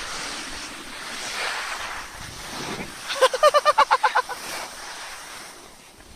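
A person laughing: a high-pitched run of about ten quick 'ha' pulses lasting about a second, starting about three seconds in, over a steady hiss.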